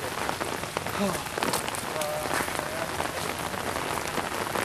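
Steady rain falling, an even hiss dotted with many small ticks of close drops.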